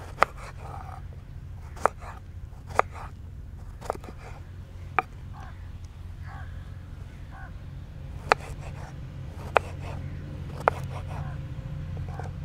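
Chef's knife cutting through an eggplant into large pieces, the blade knocking sharply on a wooden cutting board about eight times at irregular intervals, over a steady low hum.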